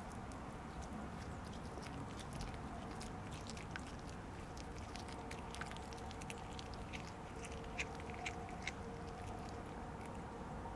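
A cat chewing and crunching food close up: a run of small sharp crunches and clicks, busiest in the middle stretch.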